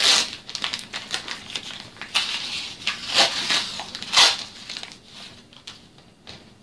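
Adhesive packing tape ripped off the roll in several rasping pulls over the first four seconds or so, as it is wound around a cardboard wrapping. Quieter crinkling of paper and cardboard follows.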